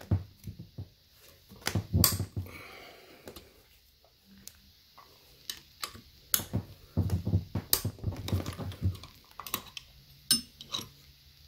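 Hex key clicking and scraping in the shifter's mounting bolts as they are loosened and taken out of a TREMEC TKO transmission's shifter housing: scattered small metal clicks and taps at an uneven pace.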